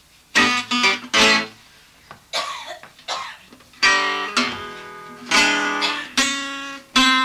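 Acoustic guitar strumming blues chords, each chord struck sharply and left ringing, with short pauses between strokes.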